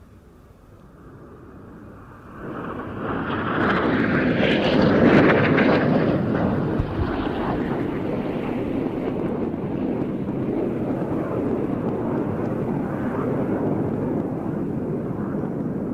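Aero L-159A ALCA light combat jets making a low pass, the roar of their turbofan engines rising quickly to its loudest about five seconds in, then carrying on steadily.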